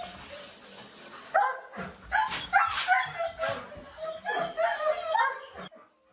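Several boarded dogs in a kennel barking and yipping in quick, high-pitched volleys, pretty loud, over a steady hiss in the first second. The sound cuts off suddenly near the end.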